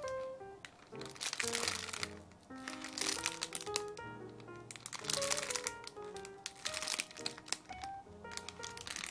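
Background music with a light melody, over which come several short bursts of crinkling from the squishy toy being handled.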